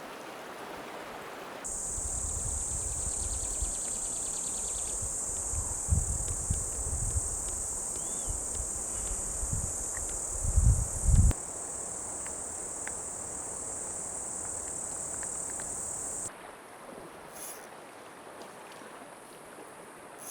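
Insects buzzing in one steady, high-pitched drone that starts suddenly about two seconds in and cuts off about sixteen seconds in, over a faint hiss of running river water. Low rumbles and a few thumps come in the first half, loudest near the middle.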